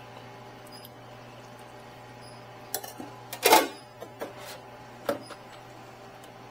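Metal serving spoon clinking and scraping against a stainless-steel steam-table pan while scooping shawarma chicken: a few short knocks about halfway through, with one louder scrape among them, over a steady hum.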